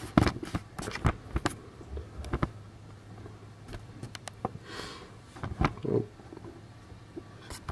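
Handling noise: a quick run of clicks and knocks over the first couple of seconds, a brief rustle near five seconds in, and a few dull thumps, as things are moved about by hand.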